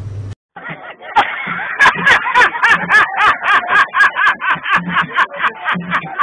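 A man laughing loudly and wildly, a rapid high-pitched 'ha-ha-ha' about three to four times a second, which starts suddenly about a second in after a short silence.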